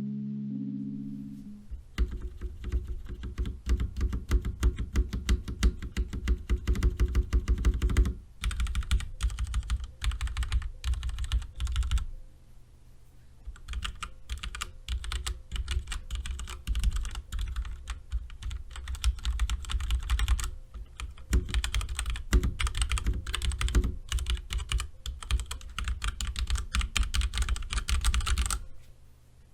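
Fast typing on a mechanical keyboard with linear Cherry MX Black switches: a dense, uneven run of keystrokes, each with a click and a low thud as the keys bottom out. The typing pauses briefly about twelve seconds in, then resumes, and stops just before the end.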